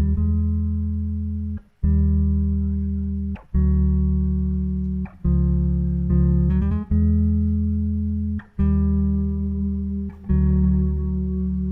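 Live instrumental music: a low, plucked-sounding chord or note is struck about every one and a half seconds and rings out, fading before the next, in a repeating figure without vocals.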